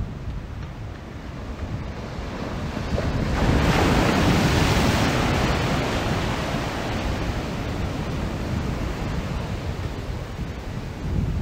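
Ocean surf breaking and washing in, with wind rumbling on the microphone; one wave swells up about three seconds in and slowly fades away.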